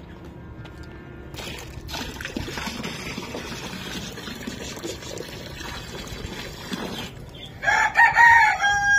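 Water pouring from a steel basin into a shallow bird water dish, splashing steadily. Near the end a rooster crows loudly.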